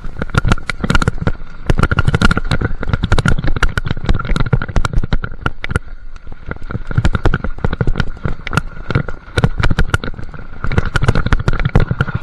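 Mountain bike clattering over a rocky trail: a dense, irregular run of sharp knocks and rattles as the wheels hit stones and the bike shakes, with a short lull about six seconds in.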